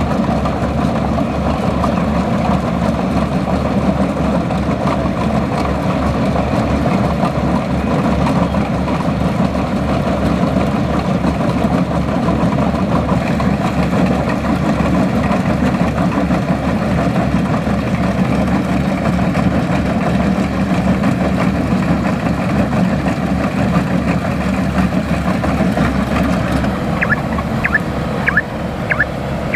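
Kubota DC-105X combine harvester's diesel engine running steadily with an even low pulse. A few short high chirps come near the end.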